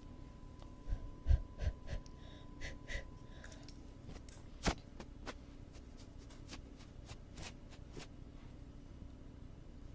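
Close-miked ASMR ear-cleaning sounds: a quick run of soft thumps about a second in, one sharper click a little before the middle, and scattered light clicks, over a faint steady hum.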